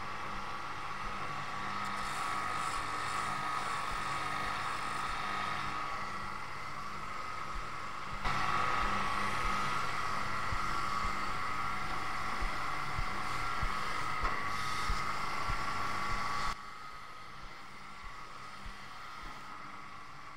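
Abrasive linishing belt running with a steady high whine as a copper-plated brass radiator shell is polished against it. The sound jumps louder about eight seconds in and drops sharply again about eight seconds later.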